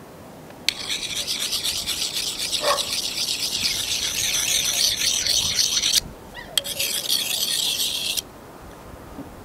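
A kitchen knife being sharpened by stroking its blade rapidly back and forth against a rusty steel bar: a rasping metal-on-metal scrape. It starts about a second in, breaks off briefly at about six seconds, then goes on for another second and a half.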